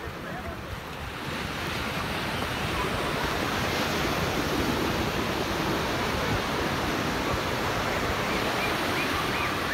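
Ocean surf washing onto a sandy beach, a steady rush that swells about a second in, with faint voices of beachgoers.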